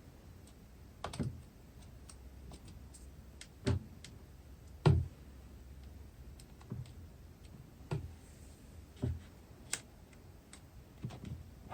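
Irregular taps and knocks from toys being handled on a table, about ten over the stretch, some with a soft low thud.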